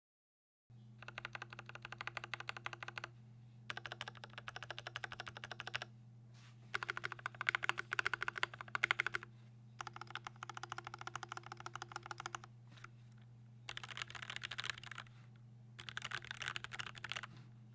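Keychron K6 65% mechanical keyboard, rebuilt with lubed linear Gateron Milky Yellow switches, lubed Durock stabilizers, case foam and GMK keycaps, being typed on quickly. The typing comes in about six bursts of a few seconds each with short pauses between them, over a steady low hum.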